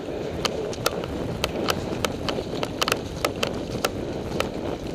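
Running footsteps on a hard floor: quick, uneven footfalls about three a second, over a steady rustle of clothing and gear against the moving camera.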